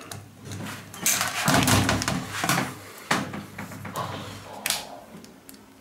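A shower cabin's sliding-door roller wheel being handled at the door frame by hand: a scraping rattle about a second in, then a few sharp clicks.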